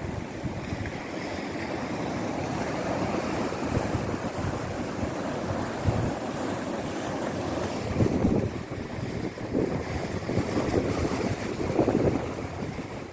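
Sea waves breaking and washing ashore, a continuous rush of surf that swells louder twice in the second half, with wind buffeting the microphone.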